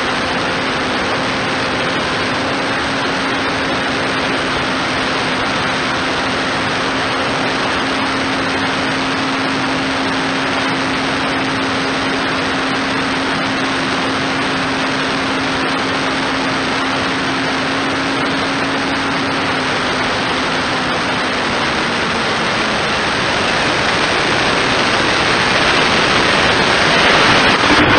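Onboard sound of a small electric RC foam plane in flight: a steady rush of air over the camera with the hum of its electric motor and propeller, the hum dropping slightly in pitch about twenty seconds in as it throttles back. The rush grows louder near the end as the plane comes down to the grass.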